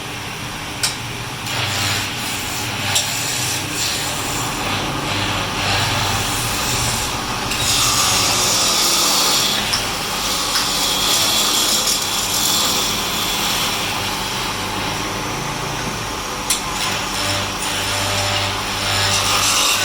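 Wood lathe running, with a turning tool cutting into the spinning wood: a steady scraping hiss over the motor's hum that grows louder about eight seconds in, with a few sharp clicks.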